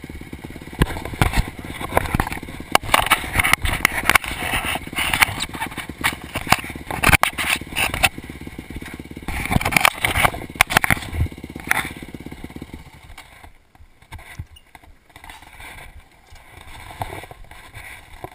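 Dirt-bike engine idling steadily, with irregular bursts of rustling noise over it. The idle cuts off about thirteen seconds in, leaving only faint rustling.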